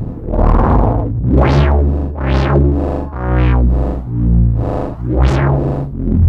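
Eurorack modular synthesizer drone from two oscillators: a steady low pitched tone whose brightness sweeps open and closed about once a second.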